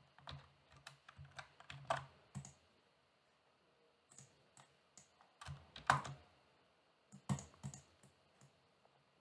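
Computer keyboard keys pressed for shortcuts: quiet, irregular clicks with a short pause about three seconds in.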